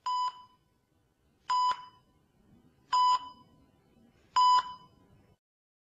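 An electronic beeper sounding four short beeps at one steady pitch, about one and a half seconds apart.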